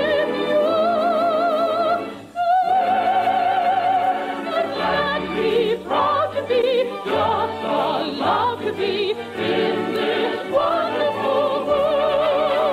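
An operatic soprano sings with an orchestra, holding high notes with a wide vibrato. There is a brief break about two seconds in, shorter phrases in the middle, and another long held note near the end. The sound is narrow and dull at the top, as an old radio transcription is.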